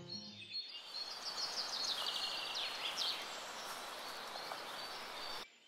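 Outdoor ambience: a steady hiss with small birds chirping in quick runs of high notes, busiest in the first half, which cuts off suddenly near the end. A little background music fades out about half a second in.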